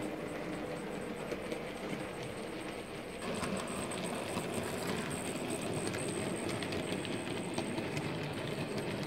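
Model railway goods train running along the track: a steady rolling rumble of small wheels on rail, with many fine clicks over the rail joints and a faint high whine. The sound steps louder about three seconds in.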